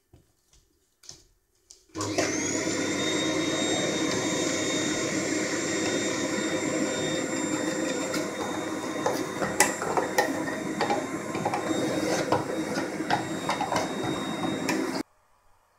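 Vacuum cleaner switched on about two seconds in, its motor whining up to speed and then running steadily as the hose nozzle sucks milling chips off a freshly milled circuit board. Clicks and rattles of chips going up the hose come in the second half, and the vacuum cuts off suddenly near the end.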